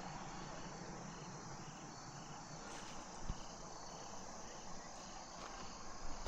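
Crickets chirping faintly in a steady, pulsing rhythm.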